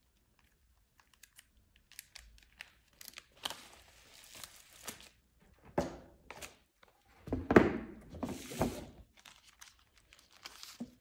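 Parcel packaging being torn open and crinkled by hand: irregular tearing and rustling of paper and tape, with short crackles, the loudest stretch about seven seconds in.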